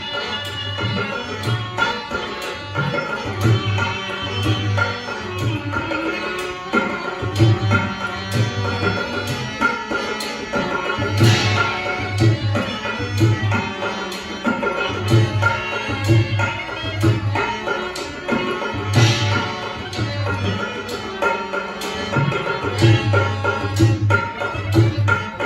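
Rajasthani folk music played on a hand drum and a melodic instrument. The drum beats a repeating pattern of deep strokes in short groups, and a bright accent comes back about every eight seconds.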